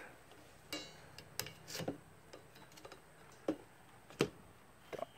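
Windscreen wiper blade and arm on a Ford BA Falcon: a handful of short, sharp clicks and taps at uneven intervals.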